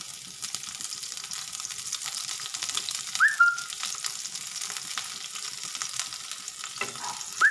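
Cauliflower florets frying in hot mustard oil in a kadai: a steady sizzling hiss. A short rising whistle-like chirp sounds about three seconds in and again at the very end.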